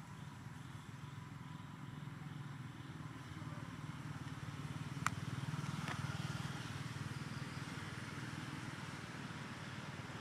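A low engine drone, like a passing motor vehicle, that grows louder toward the middle and then eases off, with a sharp click about five seconds in.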